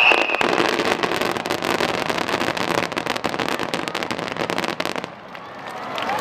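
Aerial fireworks crackling: a dense run of rapid small pops for about five seconds, dying away near the end.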